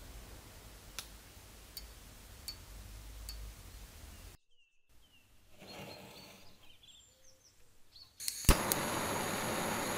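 A few faint ticks, then a handheld gas torch lights with a sharp click near the end and burns with a steady hiss.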